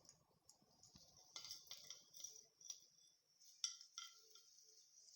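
Quiet crackling, tapping and light clinking from a Christmas tree being handled. Three short ringing pips come in quick succession a little past the middle.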